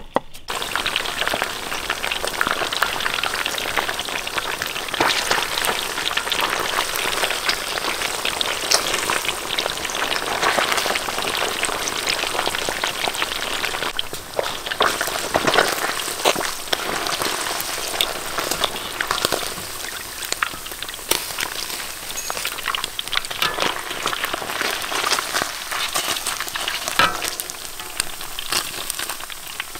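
Food frying in hot oil in a pan: a steady sizzle with many small crackling pops throughout.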